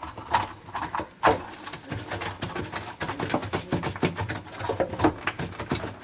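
Plastic dishwasher pump cover being turned and seated over the impeller housing by hand: many quick, irregular plastic clicks, knocks and scrapes.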